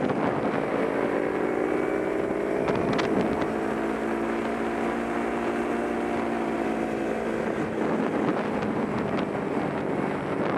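A Kawasaki Ninja 250 motorcycle's engine running under way at fairly steady revs, its note rising slightly and easing off, under heavy wind noise on the onboard microphone.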